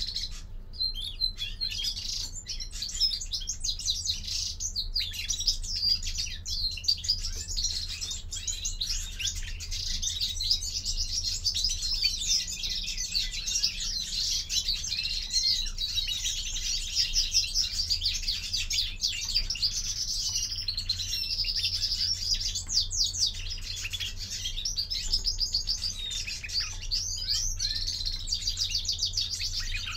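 European greenfinch song: an unbroken run of fast twittering trills and chirps.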